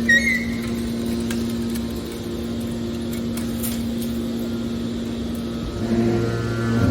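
Baler machine's motor and pump running with a steady hum. About six seconds in, a deeper tone joins and the sound gets louder.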